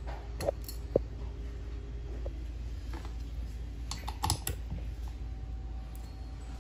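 Sharp metallic clicks as small screws are handled in the fixture of a benchtop torsion testing machine, two single clicks early and a quick cluster about four seconds in, over a steady low hum.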